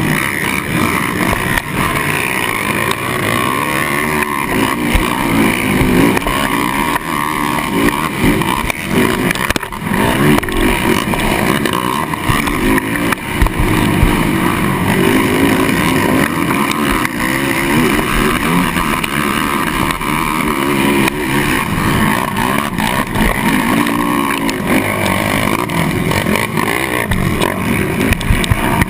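Kawasaki KFX450R quad's single-cylinder four-stroke engine at race speed, revving up and down continually as the rider works the throttle and shifts through the gears.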